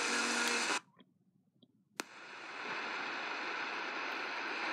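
Eton Elite Executive radio's speaker giving off hissy FM reception, which cuts out to silence under a second in as the band is switched. A single click follows about two seconds in, then steady static from an empty frequency at the top of the AM band.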